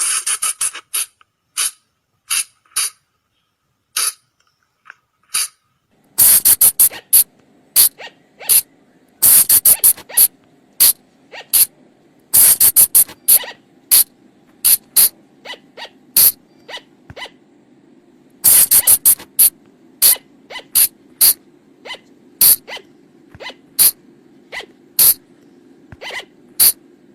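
Sunda flying lemur (colugo) calling: short, sharp, high-pitched calls, some single and some in rapid runs. A low steady hum comes in under them about six seconds in.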